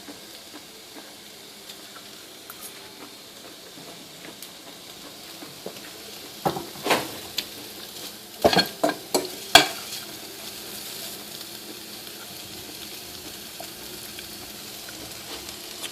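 Food sizzling steadily in a hot pan, with a quick run of sharp utensil-on-pan clatters in the middle.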